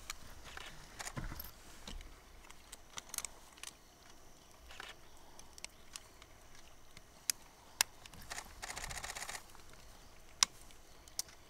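Camera shutters clicking: scattered single clicks, then one rapid burst of about a second, like continuous shooting, about three-quarters of the way through.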